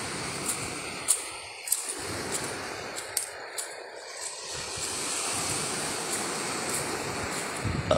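Surf breaking and washing up the beach, a steady rushing noise with wind buffeting the microphone. A few faint sharp clicks are heard scattered through it.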